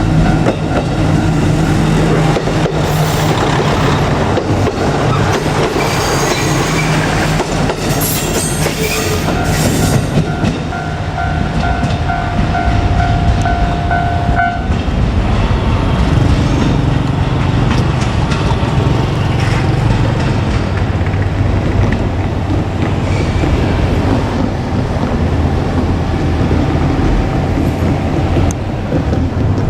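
JR Kyushu KiHa 200 diesel railcar running past a level crossing: its diesel engine hums steadily and its wheels clatter and click over the rails. About ten seconds in, a steady high tone sounds for about four seconds.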